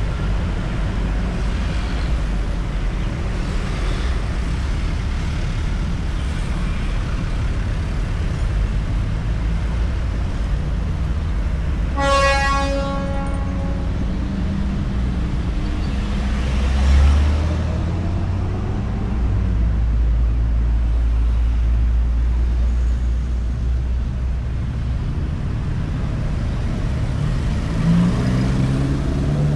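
Road traffic rumbling steadily. A vehicle horn sounds once for about a second and a half about twelve seconds in, a vehicle passes close a few seconds later, and an engine revs up near the end.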